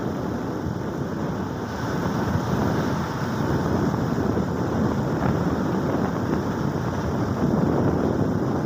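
Wind rushing over the microphone of a moving motorcycle, a steady noisy rumble with road and engine noise mixed in.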